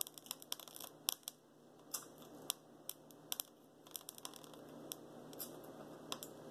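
Close-miked eating of a shrimp by hand, the shell still on: many irregular sharp clicks of mouth smacking and chewing, with shell peeling and tearing.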